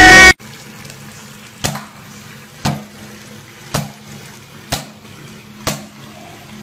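A Nerf-style foam-dart blaster fired five times, about once a second, each shot a sharp click, over a low steady background hiss.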